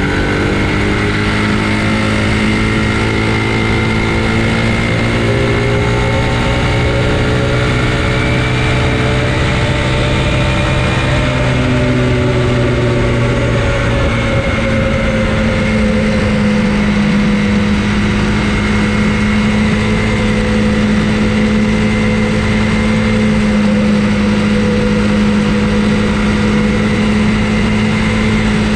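E-mountain bike (pedelec) in motion: continuous wind and rolling noise with a steady whine from the drive motor, its pitch drifting slowly up and down.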